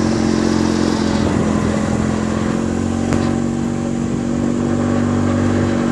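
Engine of an open off-road utility vehicle running at a steady pitch as it drives down a dirt track, with a single sharp click about three seconds in.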